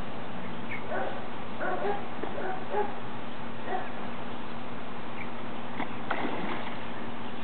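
A hooked patin catfish thrashing and splashing at the water's surface about six seconds in. Earlier, a run of short high yips, several in quick succession, over a steady low hum.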